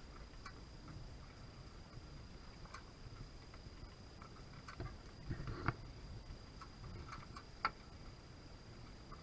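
Faint scattered clicks and knocks from a sailing catamaran's fittings and rigging, the sharpest two about five and a half and seven and a half seconds in, over a steady thin high whine.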